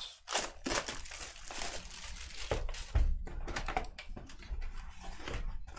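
Plastic wrapping crinkling and tearing as a hobby box of baseball cards is unwrapped and opened, in quick irregular rustles and rips.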